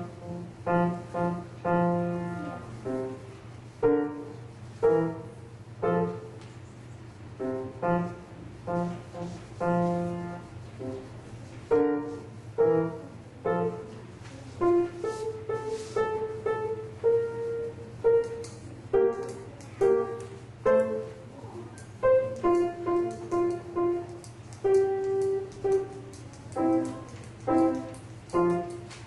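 Solo piano playing a simple, slow children's recital piece, one note or small chord at a time, over a steady low electrical hum.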